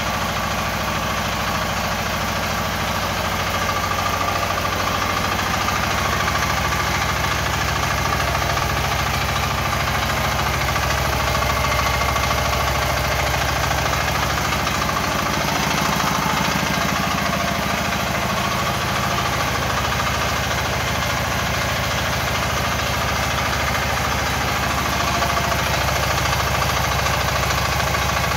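Small 496 cc diesel engine of an Agro-Car rural utility vehicle idling steadily.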